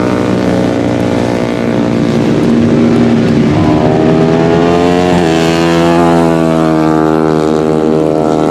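150cc four-stroke underbone race motorcycles running hard, their engine notes rising and falling as they rev and shift.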